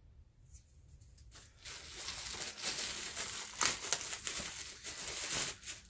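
Plastic merchandise bag crinkling and rustling as it is handled and opened. The sound starts about a second and a half in and stops shortly before the end.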